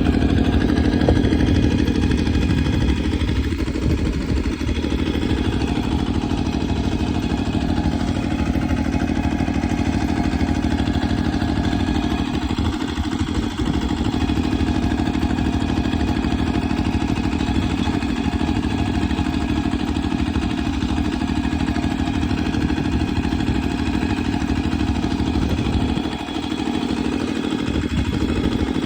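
An engine running steadily at a constant pitch, dipping briefly near the end.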